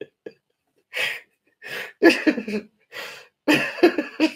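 A man laughing hard in loud, breathy bursts, with quick pulsed runs of laughter about two seconds in and again near the end.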